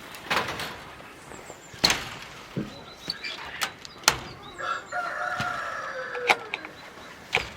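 A rooster crowing once, one long call of about two seconds midway, that drops slightly at its end, among chickens. Several sharp knocks cut through, the loudest sounds.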